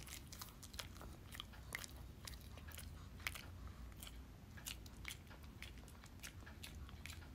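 A Shih Tzu chewing a crunchy dog treat: faint, irregular crisp crunches, a few a second.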